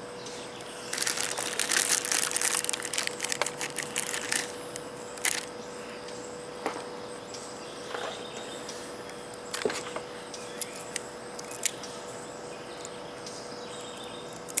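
Handling noise of a wire and a hand tool being worked close to the microphone. There is a couple of seconds of dense crackling and rustling about a second in, then scattered small clicks. A faint steady hum runs underneath.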